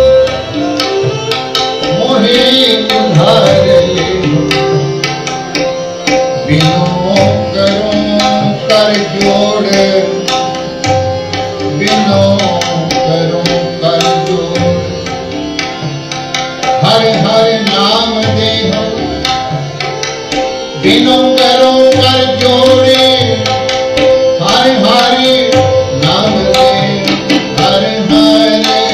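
Sikh devotional kirtan: a voice singing a hymn over a steady harmonium drone, with tabla playing a regular rhythm.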